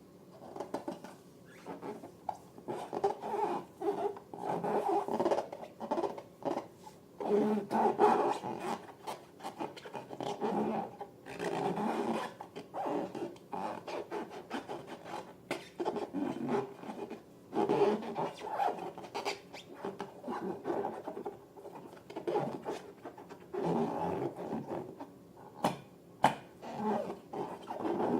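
Long latex balloons rubbing and squeaking as they are handled and squeezed, in irregular bursts with short clicks between them.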